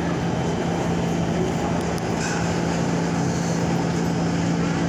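Inside an R46 subway car: a steady mechanical hum and rumble at an even level, with a constant low drone.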